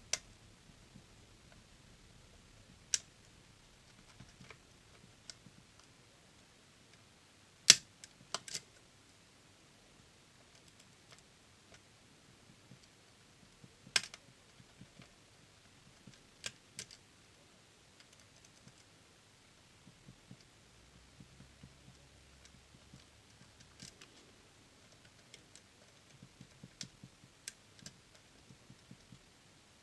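Lock picks working a DOM System D dual-blade pin-tumbler lock: scattered small metallic clicks and ticks as the hook pick lifts pins under tension, with sharper clicks about eight and fourteen seconds in.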